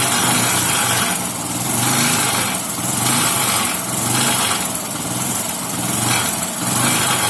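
Bajaj Discover motorcycle's single-cylinder engine idling with a rattling vibration that swells and fades about every second and a half. The rattle comes from the silencer's loose mounting nuts and bolts, which the mechanic judges to be outside vibration, not timing-chain or rocker noise.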